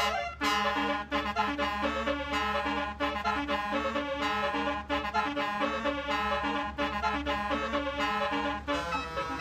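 Basuri musical horn on a bus playing a multi-note tune in a steady rhythm, a repeating lower figure under a higher melody, with a steady low hum underneath.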